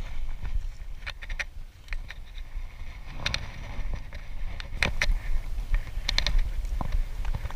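Wind rumbling on an action-camera microphone, with scattered rustles and sharp clicks from footsteps on pine straw and handling of a fishing rod.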